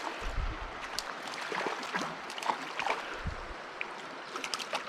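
A brook's water running steadily, with scattered small clicks and splashes and a couple of brief low thumps.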